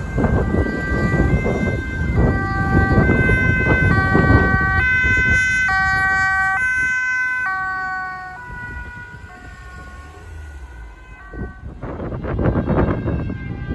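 Dutch police car's two-tone siren alternating high and low about twice a second, growing louder as it approaches. Its pitch drops as it passes about eight seconds in, then it fades away. Rumbling wind or traffic noise comes up near the end.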